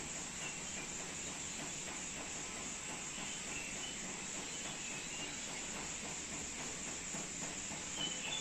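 Steady outdoor insect chorus: a continuous high chirring over a soft, even hiss, with a few faint short chirps.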